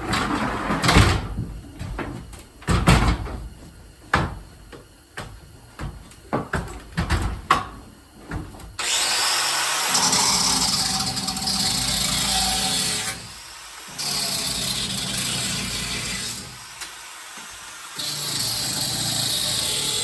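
Scattered knocks and clatter, then about nine seconds in a small grinder starts up and grinds through nails in the joists with a steady loud whine. The sound drops back twice for a second or so before the grinding resumes.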